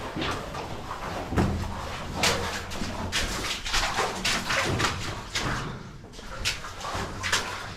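People moving through a cave passage: irregular knocks, scrapes and rustles, a few each second.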